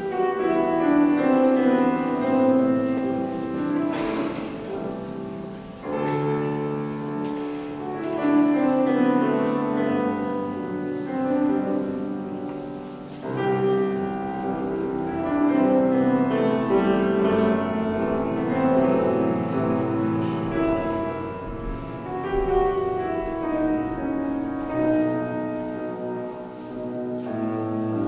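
Grand piano playing a classical passage alone, in flowing phrases, with brief lulls about six and thirteen seconds in.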